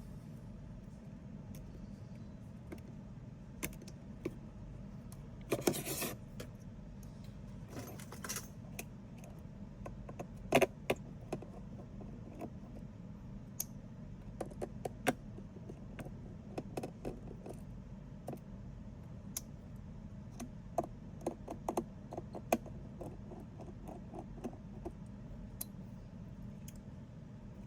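Small hard objects being handled: scattered light clicks and metallic taps, with two short scrapes about six and eight seconds in and a sharper cluster of knocks around ten seconds. A steady low hum runs underneath.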